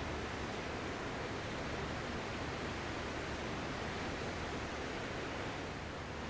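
Ocean surf heard as a continuous, even wash of rushing water, with no single breaking wave standing out.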